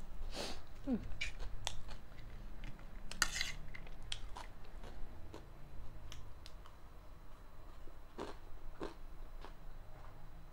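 Metal spoon clinking and scraping against a plate as crunchy chatpate is scooped up and chewed, with scattered sharp clicks and a louder crunchy burst about three seconds in.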